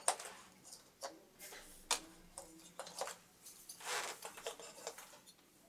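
A series of faint, light clicks and taps, spread out over a few seconds.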